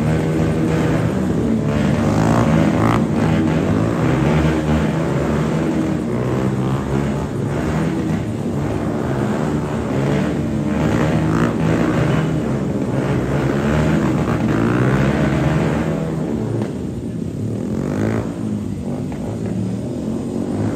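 Several motorcycle engines running at once, their pitches wandering slightly up and down and overlapping into a steady drone.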